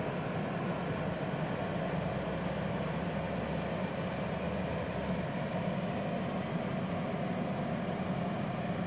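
Steady hum of a Multipro VRD MMA 400 A-MZ IGBT inverter stick welder's cooling fan. The machine is powered on and idling with no arc struck.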